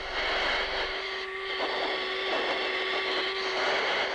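Jet aircraft engine running steadily: a constant drone with a held hum and a broad hiss, the deepest rumble dropping away about a second in.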